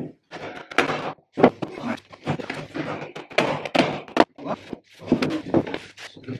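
Rubber mallet knocking notched pine boards together into interlocking slot joints: a series of irregular wooden thunks.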